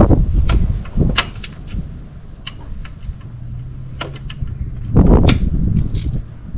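Metal hand tools clicking and knocking against engine parts, with a few heavier thumps and a short low hum in the middle.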